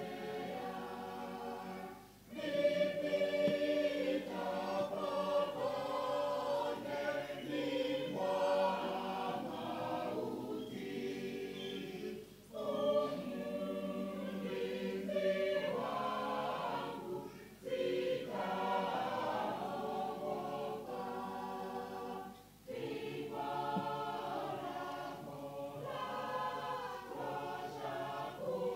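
Mixed church choir singing a hymn in parts, the phrases broken by four brief pauses for breath.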